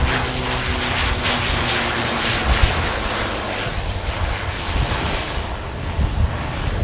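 Beechcraft King Air 200's twin turboprop engines running as the plane rolls out along the runway after landing, a steady hiss with a faint hum that fades after about two and a half seconds. Wind buffets the microphone underneath.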